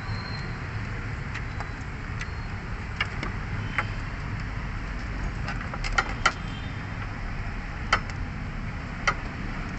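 Scattered light clicks and knocks of a fuel pump assembly's parts being handled and fitted, with a few sharper knocks past the middle, over a steady low rumble.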